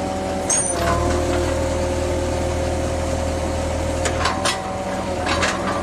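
GeoProbe 7700 direct-push drill rig running, a steady engine hum with a whine from its hydraulics and a few sharp clicks. The low rumble eases about four seconds in.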